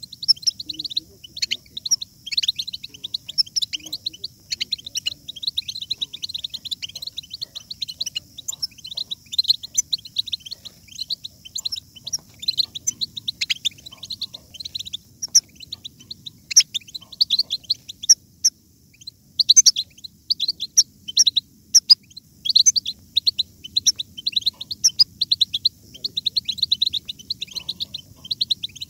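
European goldfinches twittering: a dense, continuous run of quick high chirps and trills.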